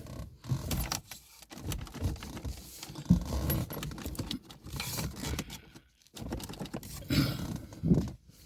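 Irregular clicking and rattling from hands and tools working at a car's plastic dashboard trim.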